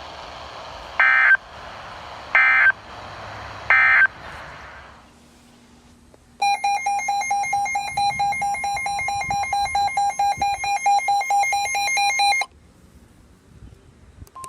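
Emergency Alert System data bursts on a NOAA Weather Radio broadcast: three short raspy digital bursts about a second and a half apart, the end-of-message code. After a short lull comes a buzzy electronic alert tone that warbles rapidly between two pitches for about six seconds and then cuts off suddenly.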